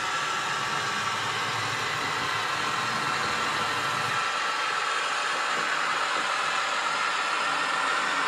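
Steady running sound of a Kaluga diesel shunting locomotive's engine, with a hiss over it. The low rumble drops away about four seconds in.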